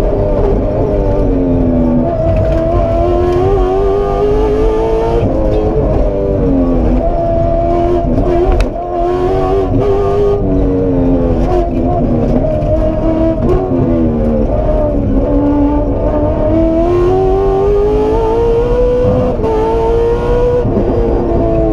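Aston Martin Vantage rally car's engine heard from inside the cockpit, driven hard, its note climbing and falling over and over with throttle and gear changes. A brief lift about nine seconds in.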